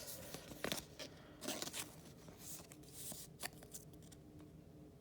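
Faint rustling and a few light clicks of trading cards being handled and slid into plastic card sleeves.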